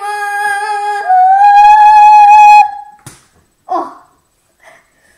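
A boy's voice holding one long, loud wordless note that jumps up an octave and gets louder about a second in, then stops after about two and a half seconds. A click and a short vocal sound follow.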